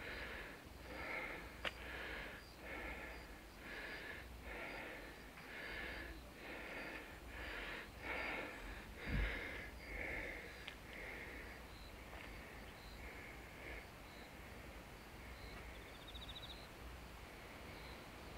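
Footsteps of someone walking at an even pace, about three steps every two seconds, fading away after about fourteen seconds. A single low thump about nine seconds in.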